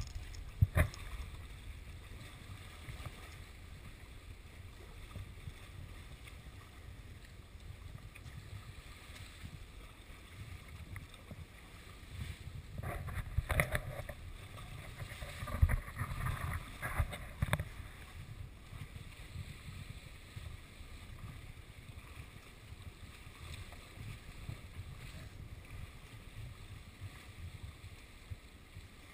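Sea water lapping and sloshing close to the microphone, with a steady low rumble. A cluster of sharper splashing sounds comes around the middle.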